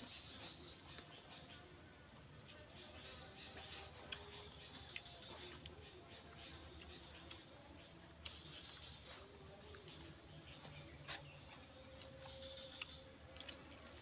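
Steady, high-pitched insect chorus, a continuous trill holding without a break, with a few faint scattered ticks.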